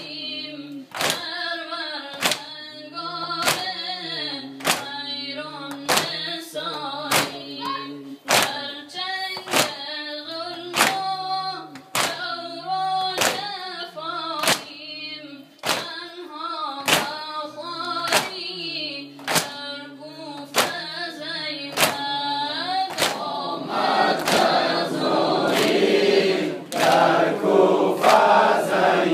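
A young male voice chants a Shia noha lament over a loudspeaker, while the congregation beats their chests in unison with one sharp slap roughly every 0.8 seconds (sineh zani). About 23 seconds in, the crowd of men joins in singing the refrain together, and the chest-beating carries on.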